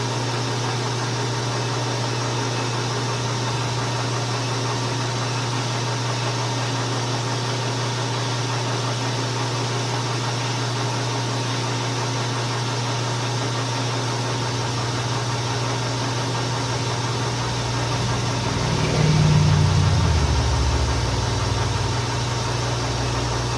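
South Bend 16-inch-swing lathe running steadily, with a constant low motor hum and a noisy whir, while a small bushing is parted off. About 18 seconds in the sound swells and a low tone falls in pitch, then settles.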